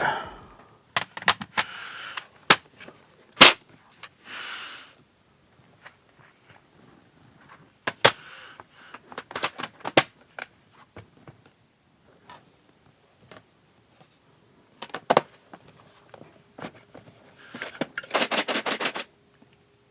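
Scattered sharp clicks and knocks from small plastic parts being handled as leftover keycaps and tools are put away. A dense, rapid clatter follows near the end, lasting about a second.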